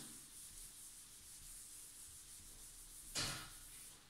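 Whiteboard eraser rubbing across a whiteboard as written words are wiped off: a faint, steady scrubbing hiss, with a louder stroke about three seconds in.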